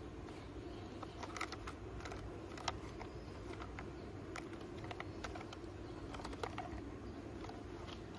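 Light, irregular clicks and taps of a hard plastic toy ice-cream car being handled and turned over in the hands, the sharpest two about a third of the way in and near the end. A steady low hum runs underneath.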